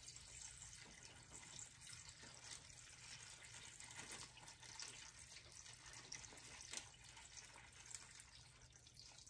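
Water poured from a glass pitcher in a thin stream onto clay pebbles in a hydroponic net pot, heard as a faint, steady trickle.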